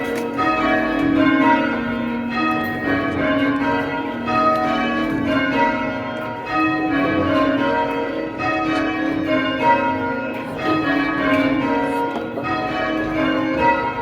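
Church bells being change-rung: an even, unbroken succession of bell strikes, their tones overlapping in a continuous ring.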